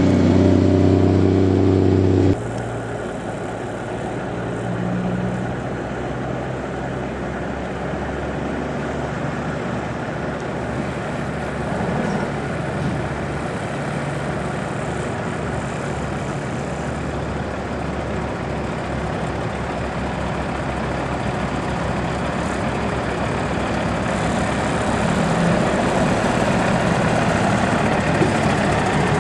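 Heavy diesel truck engines running. A loud, even engine hum in the first two seconds or so stops abruptly and gives way to a rougher, steady rumble that grows louder near the end.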